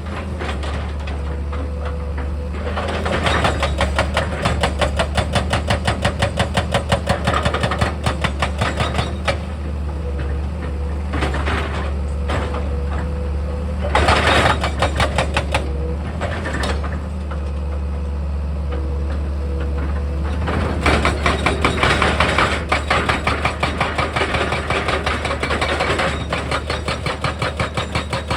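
Heavy diesel earthmoving machinery running steadily, with several spells of rapid, rhythmic mechanical clattering that come and go over the engine note.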